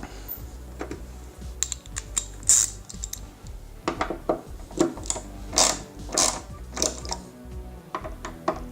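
Irregular metallic clicks and clacks of hand-tool work on a motorcycle, ratchet-like, thickest in the middle, over faint background music.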